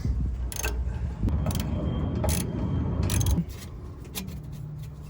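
Scattered sharp metallic clicks and clinks from exhaust hardware being handled and fitted, over a low rumble that drops away about three and a half seconds in, leaving a faint steady hum.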